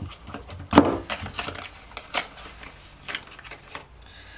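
Small clicks and knocks of cosmetic packaging being handled and set down, with light rustling between; the loudest knock comes about a second in.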